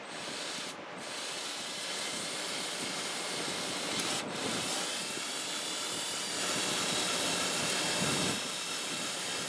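Handheld power drill spinning a cylinder hone inside a Honda HRS21 mower engine's cylinder, its stones grinding the cylinder wall wet with WD-40 and cutting metal: a steady whir and hiss with a faint high motor whine.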